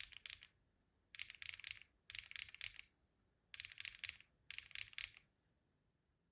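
Mechanical keyboard with HMX Yogurt switches being typed on in quick bursts of rapid, clacky keystrokes, about five bursts with short pauses between. The typing stops a little after five seconds in.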